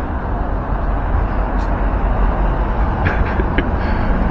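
Steady rumble of city road traffic, with no words over it.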